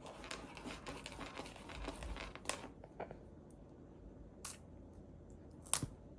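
A plastic wrapper crinkling and rustling for about three seconds, then a few separate sharp clicks, likely a rice puff snack bag being handled.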